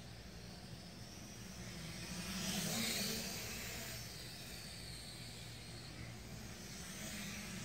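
MJX X600 hexacopter's motors and propellers buzzing in flight, with a steady hum and hiss that swells loudest about two to three seconds in, then settles back.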